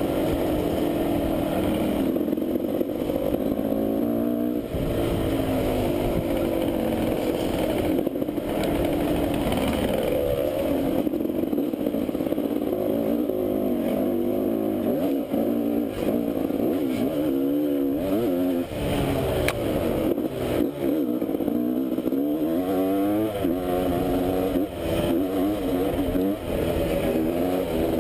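Enduro dirt bike engine running close by, its pitch rising and falling over and over with the throttle on a rough trail, with occasional knocks from the bumps.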